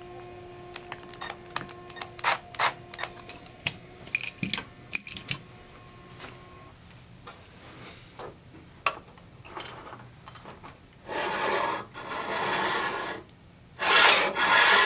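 Metal bracket parts clink and tap as they are handled. Near the end come two longer stretches of the steel bracket sliding and scraping across the back of a flat-panel TV.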